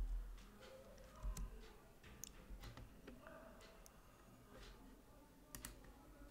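Faint, irregular clicking of a computer keyboard, with a soft low thump at the start and another just over a second in.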